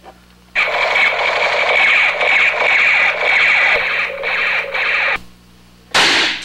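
Sci-fi laser-beam sound effect: a harsh, steady hiss with a high whistling tone held through it, lasting about four and a half seconds. A short, sharp blast follows near the end.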